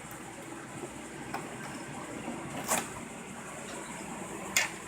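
Steady mechanical hum of the motorhome's running engine and air conditioning inside the coach, with a few sharp clicks and taps about a second and a half, under three seconds, and near four and a half seconds in.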